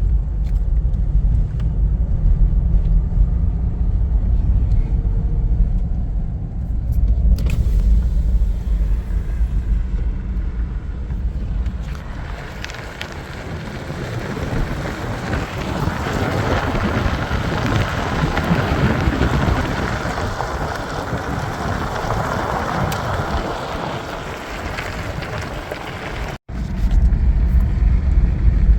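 Engine and road rumble inside a Nissan R50 Pathfinder's V6-powered cabin while it drives slowly. A rushing hiss of tyre or wind noise builds in the middle stretch and then fades, and the sound drops out for an instant near the end.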